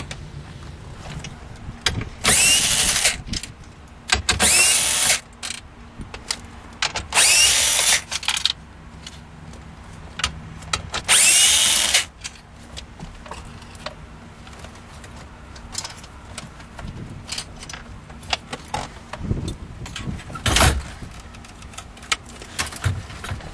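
Cordless power screwdriver running in four short bursts, backing out the screws that hold the radio in the dash. Between the bursts come scattered clicks and knocks of handling.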